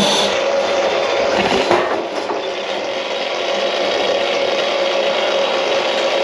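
A small motor running steadily: a constant hum over a rough, even noise, dipping slightly about two seconds in.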